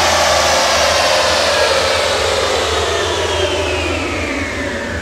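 Chassis dyno rollers and the Camaro's drivetrain spinning down after a full-throttle pull: a loud whirring whine that falls steadily in pitch and slowly fades, over a steady low rumble.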